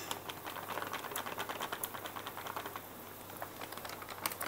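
Plastic rice-flour packet crinkling and rustling as flour is tipped from it into a steel tumbler: a faint patter of small clicks that thins out after about two and a half seconds, with a short cluster of clicks near the end.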